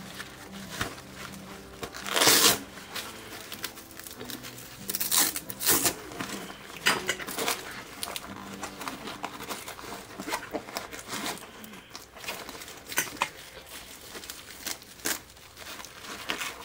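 Nylon webbing straps and fabric of a Shimoda Explore v2 camera backpack rustling and scraping as they are pulled and handled, with scattered short clicks; the loudest scrape comes about two seconds in.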